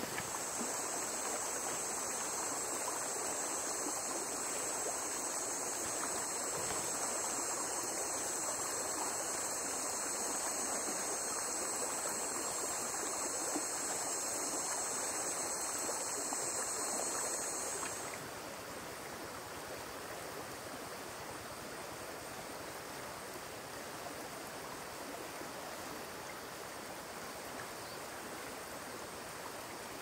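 Steady rushing water noise, with a high, steady drone over it that stops about eighteen seconds in, after which the whole is a little quieter.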